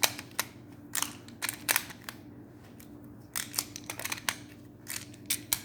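Plastic magnetic building tiles clicking together as triangles are snapped into place: a series of sharp clicks coming in small clusters.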